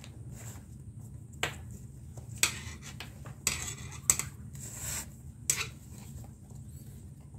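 Leather lace being worked through the lacing holes of a baseball glove's web: a few sharp clicks and rasping scrapes of lace against leather, the longest scrape in the middle.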